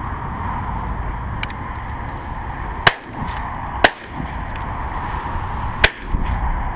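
Three shotgun shots: two about a second apart, then a third about two seconds later, each a sharp loud crack.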